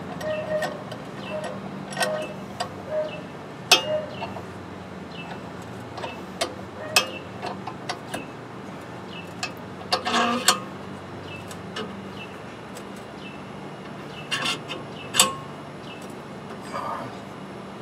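Large Wilton steel C-clamp being tightened by hand to pull an axle truss down onto the axle housing: an irregular string of short metallic clicks and taps, with a few louder knocks.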